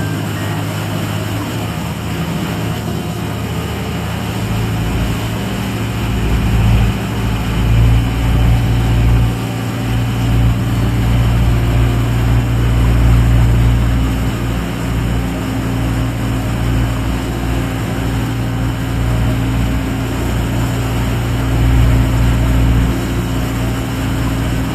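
A small ferry boat's engine running steadily with a low hum, growing louder about six seconds in.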